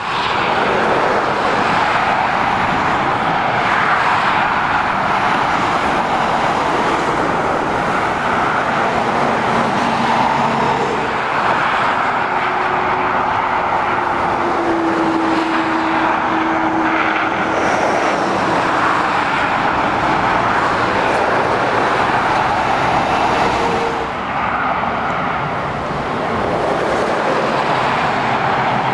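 Steady road traffic: lorries and cars passing on a dual carriageway, a continuous roar of tyres and diesel engines. A brief steady hum comes through about halfway.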